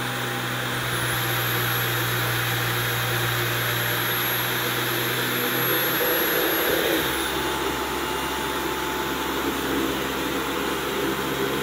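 Dyson V11 Torque Drive cordless stick vacuum running steadily in auto mode, which adjusts suction to the floor type: a motor hum with a high whine. Its tone shifts lower about six seconds in, and the high whine drops out shortly after.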